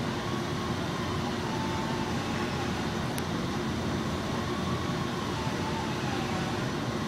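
Steady, even background noise, like ventilation or machinery running, with a faint wavering tone drifting slowly up and down over it.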